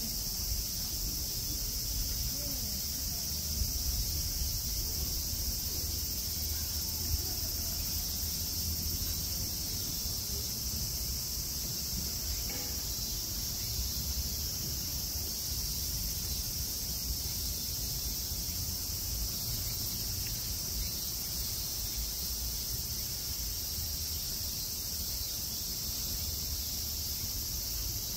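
Night insects chirring steadily outdoors, a continuous high-pitched drone, over a low background rumble.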